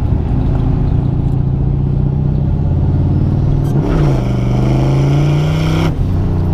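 LS-swapped BMW E36's V8 making a full-throttle pull. The engine note holds steady, jumps and dips briefly around 4 s in, then climbs and gets louder. It drops off suddenly about 6 s in as the throttle is lifted.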